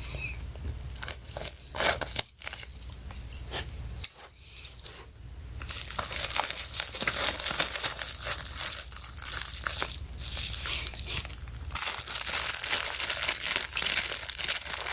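Packaging being torn open and crinkled by hand: irregular crackling and tearing, busiest in the middle, as a mailed parcel holding a small precision screwdriver kit is unwrapped.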